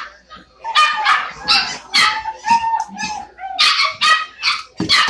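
Puppies barking in pet-store pens: a string of short, high barks, about two or three a second.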